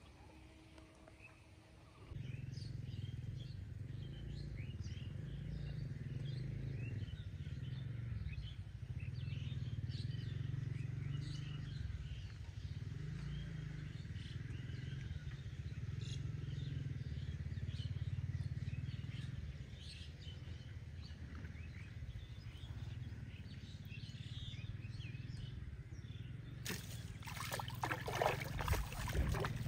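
A steady low drone with faint high chirps over it. Near the end a hooked fish thrashes at the surface of the pond, throwing up loud splashes of water.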